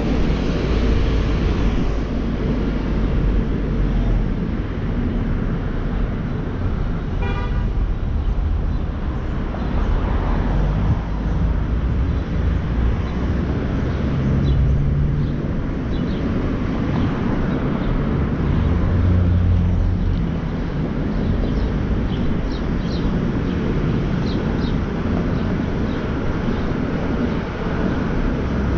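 Car driving through city traffic: a steady low rumble of engine and road noise, with a brief car horn toot about seven seconds in.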